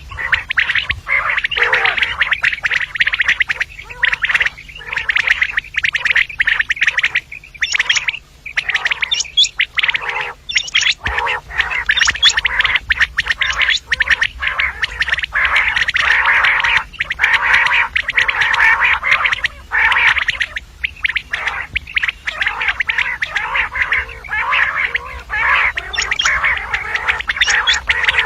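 Common quail calling: a dense, nearly unbroken run of short, harsh chattering notes with only brief pauses. This is the female quail call played to lure quail for hunting.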